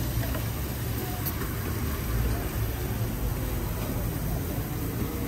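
Steady low rumble of street traffic with an even hiss over it.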